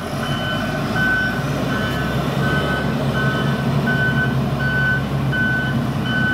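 XCMG GR135MAX motor grader's back-up alarm beeping, one beep roughly every three-quarters of a second, as the machine moves in reverse, over the steady running of its diesel engine.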